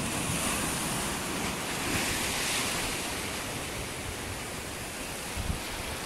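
Sea waves breaking and washing over a low rock shelf: a steady hiss of surf and foam, strongest in the first half. Wind buffets the microphone with a low rumble.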